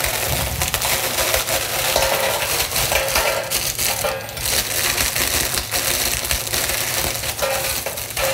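Dry ladyfinger biscuits being crushed and broken up by hand into a stainless-steel pan: a continuous irregular crunching and crackling, with the plastic wrapper crinkling as the pieces are pressed out of it.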